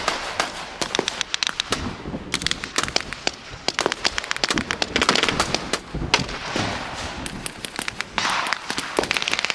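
Blank-firing small-arms fire from a mock WWII infantry battle: many guns firing sharp, irregular shots that overlap in rapid volleys.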